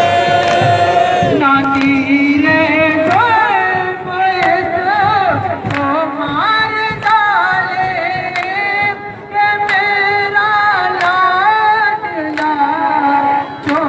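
Nauha, a Shia mourning lament, sung in a strong melodic lead voice over the procession, with a steady beat of sharp slaps a little faster than once a second as mourners beat their chests (matam).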